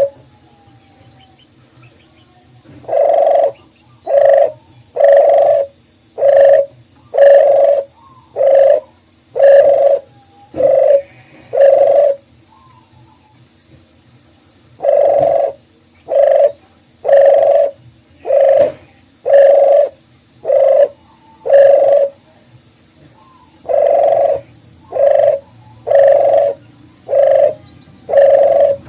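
Dove cooing: a single low coo repeated about once a second in three runs of six to nine notes, with short pauses between the runs.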